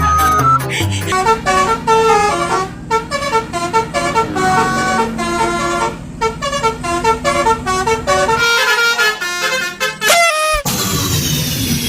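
A Basuri telolet bus horn playing a rapid melody of stepped multi-tone notes. Near the end the tune breaks off with a quick rising glide, and a noisier hissing sound with falling tones takes over.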